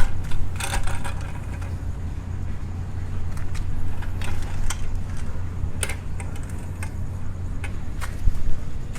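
Light metal clinks and knocks of a steel motorcycle paddock stand's swing-arm supports being shifted into place, over a steady low hum.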